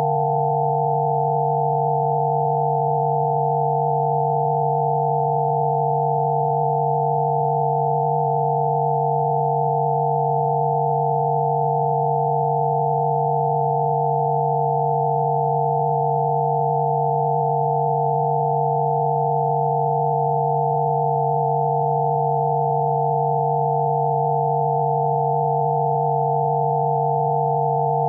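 Electronically generated Rife-frequency sine tones: a low steady hum with several higher pure tones layered over it, all held constant without a break.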